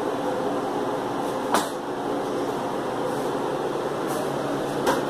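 A steady mechanical hum with a few low tones in it, broken by two brief sharp clicks, one about a second and a half in and one near the end.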